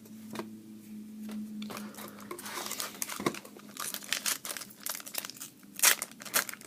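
A foil trading-card pack being torn open and its wrapper crinkled: a run of irregular crackles that grows denser from about two seconds in, loudest near the end.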